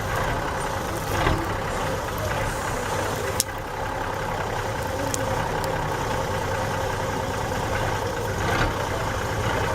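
Mercedes-Benz Unimog's diesel engine running steadily at low revs, close to idle. A single sharp click sounds about three and a half seconds in.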